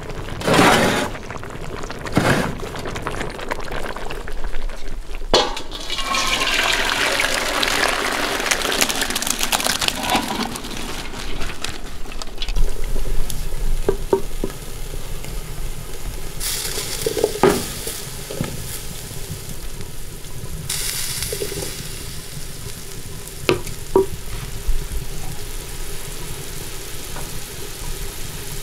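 Water sloshing and pouring as rice is rinsed and drained in an aluminium pot, with a few sharp knocks of a spoon against the pot. Later comes a steady hiss from a pot of broth simmering on the stove.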